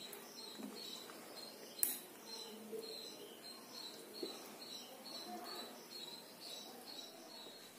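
Wooden ladle scooping thick dal from a glass bowl into clay cups: soft scrapes and one sharp knock a little under two seconds in. Behind it a high chirping repeats about three times a second.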